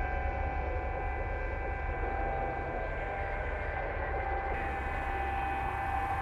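Electronic drone from a contemporary dance score: a steady low rumble under several held high tones, with a bright hiss added on top about four and a half seconds in.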